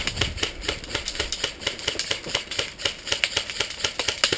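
Airsoft guns firing a rapid, uneven run of sharp clicking shots, about six to eight a second, which stop near the end.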